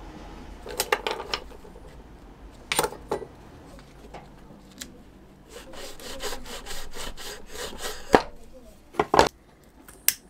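Knife blade sawing through nylon webbing against a wooden block: a quick run of rasping strokes, about six a second, for a couple of seconds past the middle. Scattered clicks and knocks of tools handled on a wooden bench come before and after it, the loudest being sharp knocks shortly after the sawing. A single click comes near the end as a lighter is struck.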